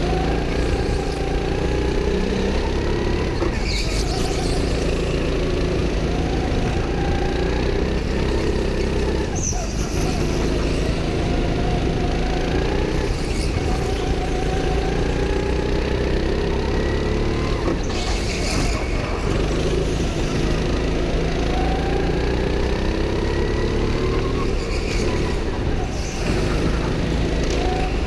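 Go-kart engine heard from a camera mounted on the kart, rising in pitch as the kart accelerates and dropping back as the driver lifts for each corner, every few seconds. A few short, sharp noises cut through it.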